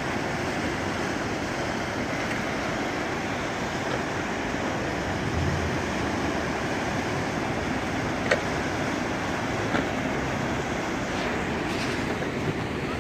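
Truckee River running high in flood, its fast water rushing in a steady, even roar, with a few faint clicks.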